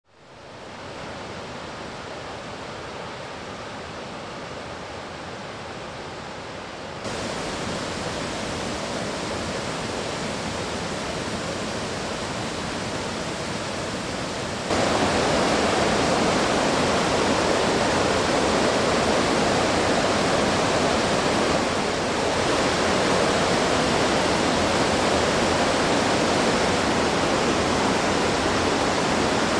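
Waterfall rushing, a steady noise of falling water that fades in at the start and steps up louder twice, about 7 and 15 seconds in.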